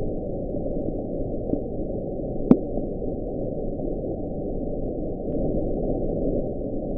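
Underwater recording of low, steady rumbling ocean noise, with a single sharp click about two and a half seconds in.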